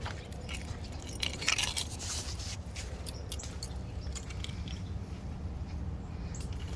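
Car engine idling with a steady low rumble, with clicks and scraping from handling close to the microphone a little over a second in.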